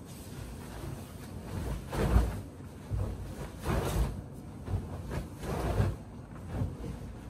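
A series of soft thumps and rustles of things being handled or moved, about one a second, the loudest about two seconds in.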